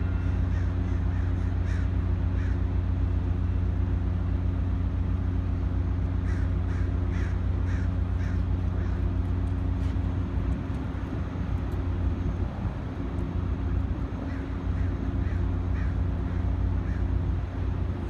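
Diesel engine of a Caltrain commuter train standing at the platform, running with a steady low drone that turns rougher for a few seconds around the middle. Crows caw in short runs over it, near the start and again about six to eight seconds in.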